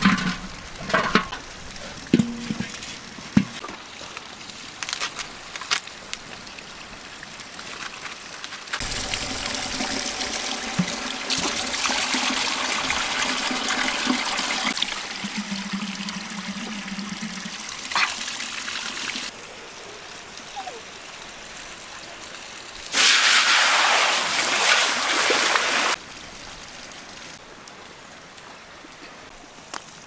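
Water running and trickling over rocks from a small spring spout as a metal cooking pot is held in the flow, with a louder rush of water for about three seconds after the middle. A few sharp knocks come in the first seconds.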